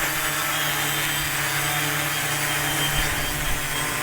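Multirotor drone on Sunnysky X4108 600KV motors swinging 12x5.5 carbon props, hovering with a steady buzzing hum. Gusty wind rumbles on the microphone underneath.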